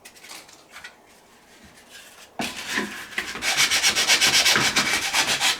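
Hand sanding the cut opening of a dried gourd with coarse sandpaper: light scratching at first, then about two and a half seconds in, loud, quick back-and-forth strokes at an even pace.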